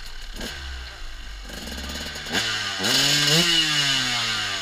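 Two-stroke enduro motorcycle engine running, then revved: its pitch jumps a little past two seconds in, climbs again to a peak about three and a half seconds in, then slowly falls back.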